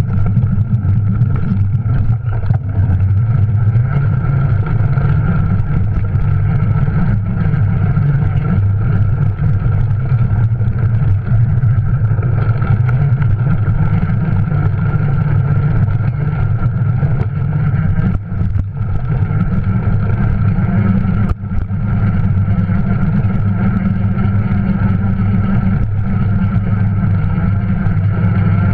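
Juiced RipCurrent S e-bike's electric motor running steadily under pedalling, with a constant low hum and a steady whine above it, carried straight to the camera through a rigid aluminium handlebar mount with no sound isolation. Mixed with the rumble of the bike over a dirt trail, it drops briefly a few times, most clearly about two thirds of the way through.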